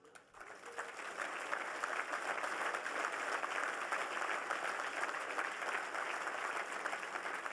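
Audience applauding. The clapping starts about half a second in, builds over the first second, then carries on steadily.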